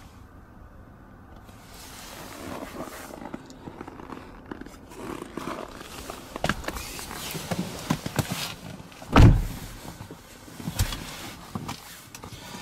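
Handling noises inside a car cabin: scraping, sliding and small knocks of seat and trim parts, with one heavy low thump about nine seconds in and a lighter knock just after.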